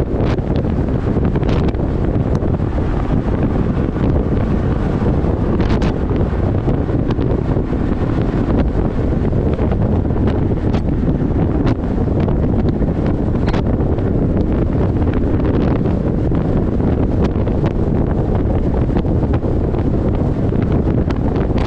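Steady rush of wind on the microphone mixed with the road and tyre noise of a car driving at freeway speed, with occasional light ticks.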